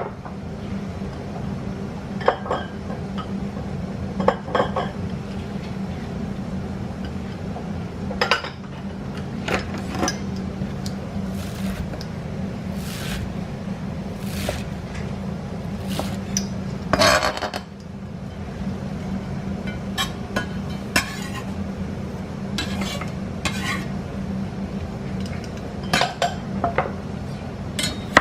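Kitchen utensils and dishes clinking and knocking as ingredients are handled and put into a bowl, in scattered short clinks with a busier patch a little after halfway, over a steady low hum.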